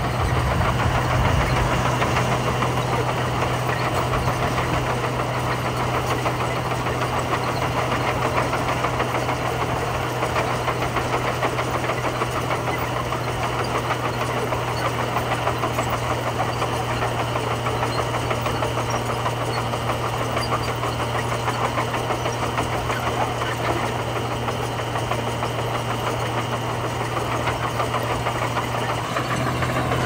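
Komatsu D41P bulldozer's diesel engine running steadily under load with a rapid clatter as the dozer pushes gravel.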